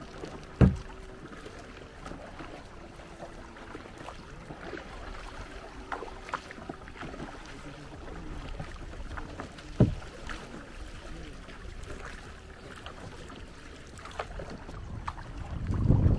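Kayak being paddled on calm water, the paddle dipping and dripping, with two sharp knocks about nine seconds apart. Wind buffets the microphone near the end.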